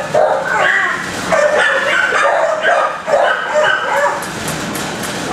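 Many shelter dogs in a kennel block barking at once, the barks overlapping without a break.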